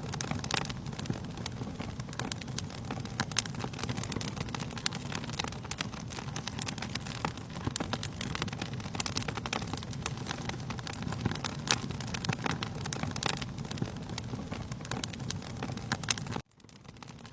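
Wood fire crackling in a fireplace, with frequent sharp pops and snaps over a steady low rumble of burning. The sound cuts out suddenly near the end and swells back in.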